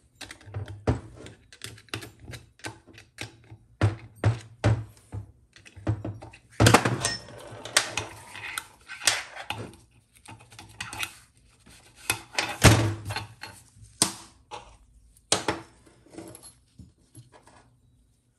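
Irregular clicks and knocks of small steel valve parts, pins and hand tools being handled against a TH350C transmission valve body casting and the workbench during disassembly, with a denser run of rattling and scraping about seven seconds in.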